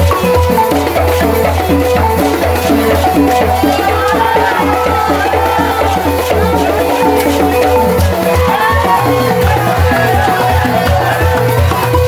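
Senufo balafon music in the kapala style: mallets beating fast repeated wooden-key notes over a pulsing low bass line, with rattles shaking along. A voice sings over it from about four seconds in, and the low strokes turn into distinct, evenly spaced beats about eight seconds in.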